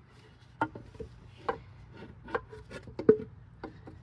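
Knocks and scuffs on wood: four sharp knocks a little under a second apart, the last the loudest, with fainter scuffing between them.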